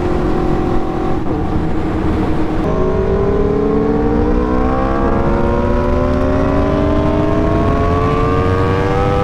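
Aprilia RSV4's V4 engine, running on MR12 race fuel, heard from the bike under way. It holds a steady pitch at first, then drops in pitch a little under three seconds in and climbs steadily as the bike accelerates hard.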